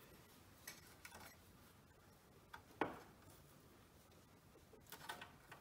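Near silence with a few faint clicks and taps, the sharpest about three seconds in and a short cluster near the end. These are small metal sounds of wire leads being bent and fitted to a terminal strip on a steel chassis.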